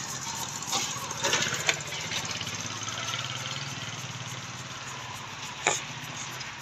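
A long latex twisting balloon being blown up, with a few short airy strokes about a second in and a sharp squeak near the end. A steady low engine-like hum runs underneath.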